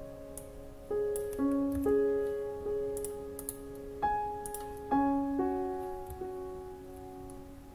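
Background piano music: slow, gentle notes and chords struck every half second to a second, each left to ring and fade.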